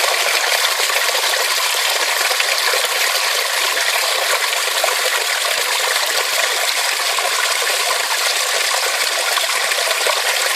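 Mountain valley stream rushing steadily over rocks, a loud, even splashing of flowing water.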